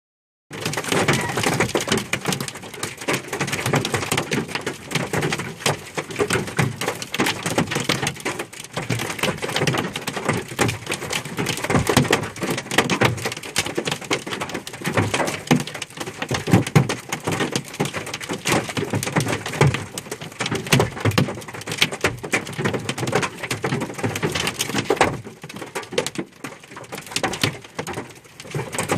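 Golf-ball-size hail pelting down: a dense, irregular clatter of hailstones striking hard surfaces. The clatter starts about half a second in and eases off for a moment near the end.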